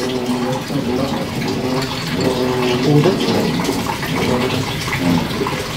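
Bamboo spit creaking and squeaking in its supports as a whole suckling pig is turned by hand over charcoal: a wavering, reedy tone like an off-key oboe.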